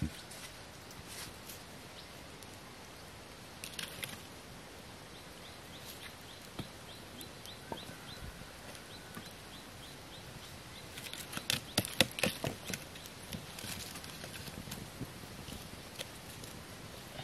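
Green bamboo tubes and sticks knocking and clattering against a wooden frame as they are stood upright over a campfire. The knocks come in scattered ones and twos, then a dense flurry past the middle. A faint rapid ticking runs in the background for a few seconds before that.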